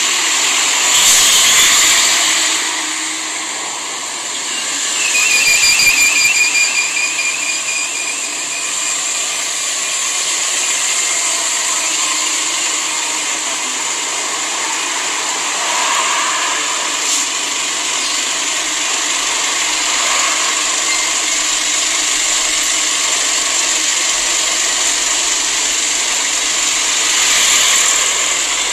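Roadside traffic noise: vehicles passing on the road, with a swell about a second in and a louder one around five to seven seconds in that carries a wavering whine, over a steady hiss.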